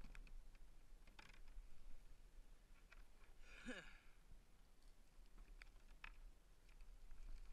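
Near silence, with a few faint clicks of gear being handled aboard a kayak and one brief falling sound about three and a half seconds in.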